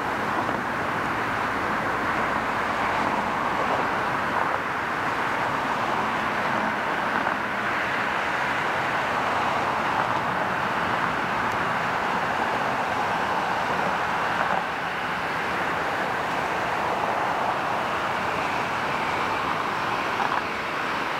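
Jet engines of a twin-engine Airbus airliner at taxi power, a steady rushing hum that holds even throughout.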